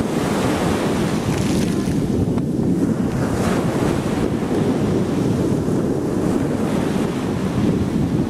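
Small surf breaking and washing in at the water's edge, a steady wash of water noise with a few swells, under a low rumble of wind buffeting the microphone.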